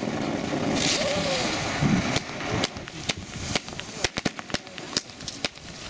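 Fireworks going off: an irregular run of sharp cracks and bangs, with a hissing, crackling burst about a second in.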